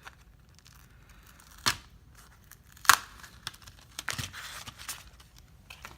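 Package wrapping torn and crinkled by hand, with two sharp snaps a little over a second apart and a spell of crinkling about four seconds in.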